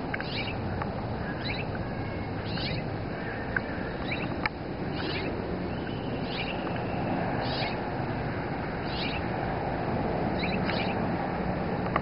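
Hawk calling: short, high, downslurred mewing cries repeated about every second and a half, over steady background noise.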